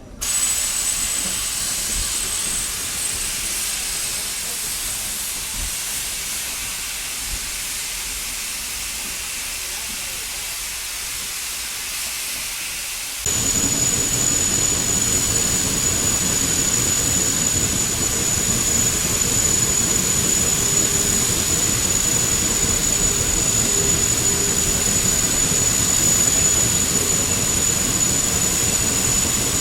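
Steam locomotive releasing steam with a steady, loud hiss that starts abruptly. About halfway through it jumps louder, with a low rumble added underneath.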